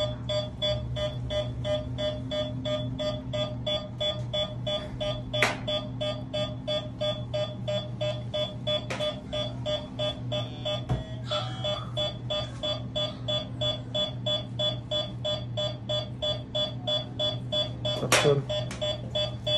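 Rapid, steady electronic beeping, about three beeps a second, over a low steady hum, with a couple of sharp clicks partway through.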